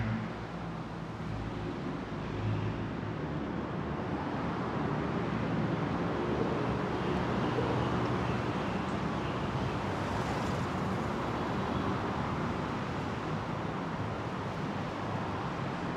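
Steady road traffic noise: a continuous hum of passing vehicles.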